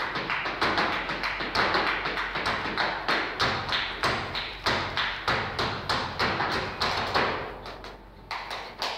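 Flamenco zapateado: a dancer's shoes striking the stage floor in fast rhythmic heel and toe beats with louder accents among them, thinning out and getting quieter near the end.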